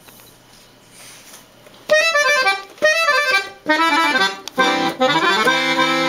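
Parrot piano accordion being played. It is quiet for the first couple of seconds, then short melodic phrases of single notes start, with brief gaps, and from about four and a half seconds in fuller chords with bass notes join.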